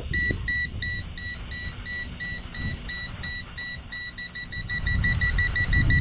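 TOPTES PT520B+ combustible gas detector sounding its leak alarm, a rapid train of high-pitched beeps that quickens from about three to about five a second as it senses acetylene bleeding from a cylinder valve and the reading rises to its 9999 ppm maximum. Wind rumbles on the microphone underneath.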